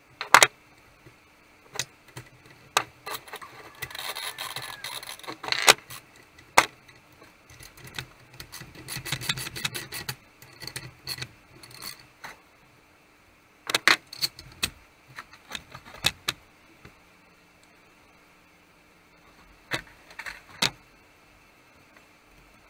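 Metal parts and hand tools of a vintage McCulloch chainsaw being handled and fitted during reassembly: scattered clicks and knocks, with two stretches of rattling and rubbing in the first half and clusters of clicks near the end.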